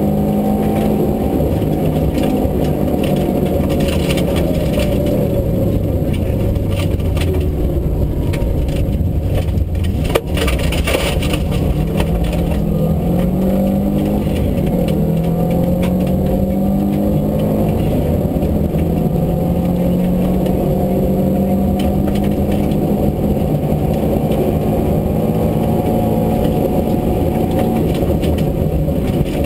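Rally car engine heard from inside the caged cabin while the car is driven hard on a gravel stage, its revs rising and falling again and again through acceleration and gear changes. A single sharp crack comes about ten seconds in.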